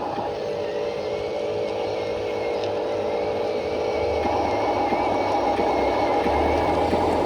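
Radio-controlled model construction vehicle running: a steady motor and gear whine, with a deeper hum coming in about four seconds in as it gets slightly louder.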